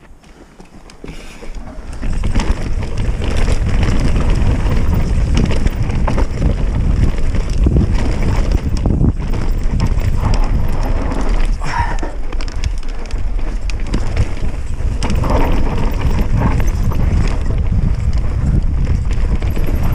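Transition Patrol Carbon enduro mountain bike riding down a steep dirt-and-rock trail: wind noise on the camera's microphone and tyres on loose dirt, with frequent knocks and rattles from the bike over rough ground. Fairly quiet at first, then loud from about two seconds in.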